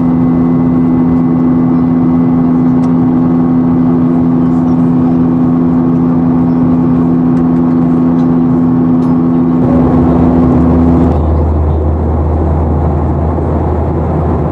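Steady in-flight cabin noise of a Boeing 737-800 at a window seat beside its CFM56-7B engine: a loud, even rush with several steady humming tones. About ten seconds in the sound shifts abruptly to a deeper rumble without the humming tones.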